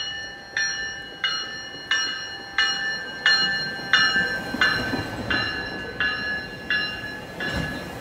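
GO Transit commuter train's bell ringing in steady, evenly spaced strokes, about three every two seconds, as the train rolls into the station. The low rumble of the passing double-deck cars builds over the second half.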